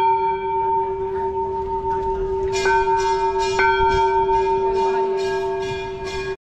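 Temple bell struck and ringing on with a long, steady hum and overtones. It is struck again about two and a half and three and a half seconds in, with a quick, regular run of lighter metallic strikes over the second half.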